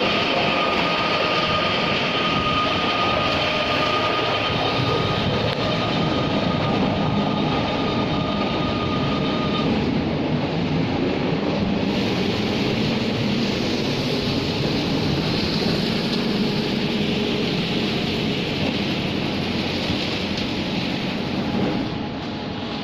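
Self-loading concrete mixer truck running steadily, a dense mechanical noise with a thin high whine that stops about ten seconds in.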